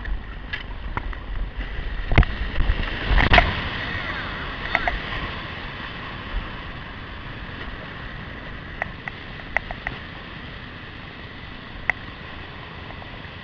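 Rushing whitewater of a rapid and small waterfall, heard close up as the kayak runs through it, with a run of heavy thumps about two to four seconds in and a few sharp knocks later.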